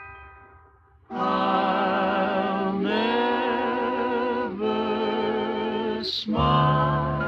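Music: a song in which a voice sings long held notes with vibrato over accompaniment, coming in about a second in after a fading run of bell-like notes.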